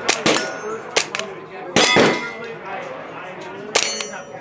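Gunshots on a range, with steel targets clanging and ringing as rounds strike them. There are several sharp hits, the loudest about two seconds in, and a hit near the end leaves a high ring hanging.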